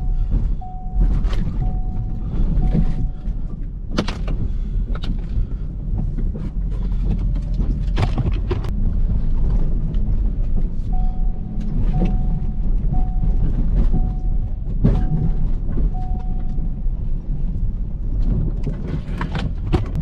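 Ford F350 plow truck running, a steady low engine rumble with a few sharp knocks and thumps. A mid-pitched beep repeats about once a second, five times near the start and six times midway.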